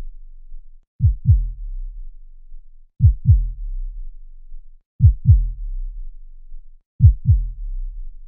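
Heartbeat sound effect: a low double thump, lub-dub, about every two seconds, four times, each pair trailing off into a low rumble.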